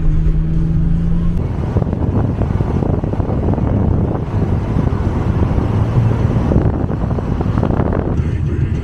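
A car on the move: a steady low engine hum, then heavier road and wind rush from about a second and a half in, which falls away again near the end.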